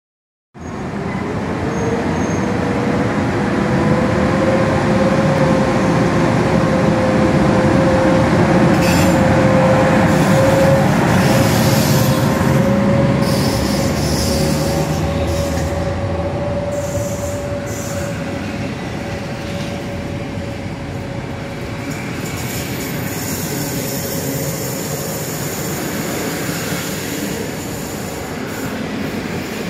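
EP09 electric locomotive pulling a passenger train out of the station, its coaches rolling past with a continuous rumble and a steady whine that rises slightly in pitch over the first half. The noise is loudest as the locomotive goes by, then eases as the coaches follow.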